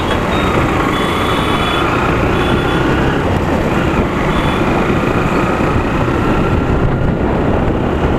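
A Honda motorcycle's engine running as the bike accelerates from a crawl, mixed with steady wind rush on the rider's mic and the pitch drifting slowly upward.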